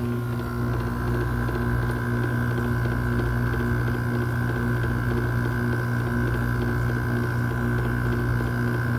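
RA51K window air conditioner running steadily: a strong low hum with several steady higher tones over a fan's rush.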